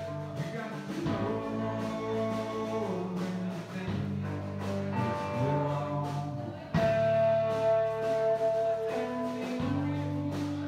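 Live band playing electric guitars over a drum kit with a steady beat; the music gets louder about seven seconds in.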